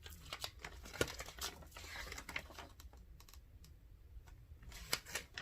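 Hands handling a small boxed cosmetic and its packaging: a scatter of light clicks, taps and crinkles, with a sharper click about a second in.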